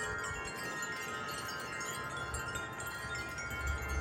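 A yard full of wind chimes ringing together in gusty wind: many overlapping, sustained notes at different pitches.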